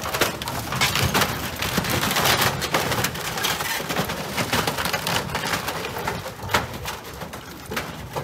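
Wooden floating dock cracking and splintering as the bow of a large yacht pushes through it: a dense run of crunching and crackling, heaviest in the first few seconds.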